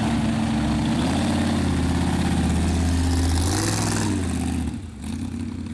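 Hot rod engines with open exhaust headers running past at low speed. The loudest is a rat rod pickup going by close about three to four seconds in, after which the sound drops away.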